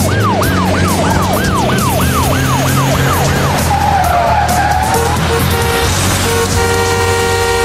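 GAZ-32214 GAZelle ambulance siren yelping in fast falling sweeps, about two and a half a second, then switching to a slower wail about four seconds in, over the hum of car engines. Steady held tones come in near the end.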